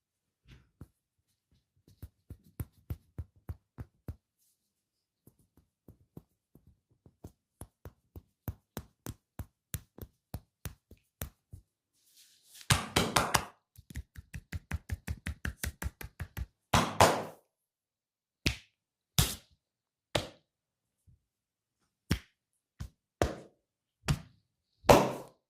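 Hands striking in a percussive massage: runs of light taps about four to five a second, two louder, denser flurries about halfway through, then single sharp slaps about a second apart.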